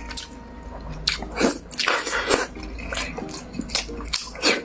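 Close-up chewing and slurping of cold noodles in chilled broth: a quick series of wet mouth smacks and slurps.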